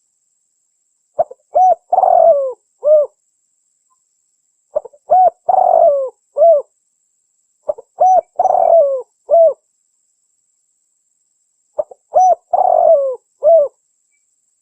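Spotted dove cooing: four call phrases about three seconds apart, each a few short coos around a longer, louder middle coo.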